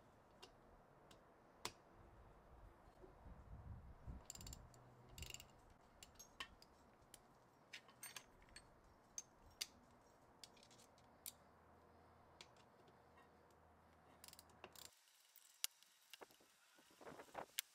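Faint clicking of a small socket ratchet working bolts out of a cast crank case, with sockets and small metal tools clinking. The clicks come scattered, with busier runs about four seconds in and again near the end.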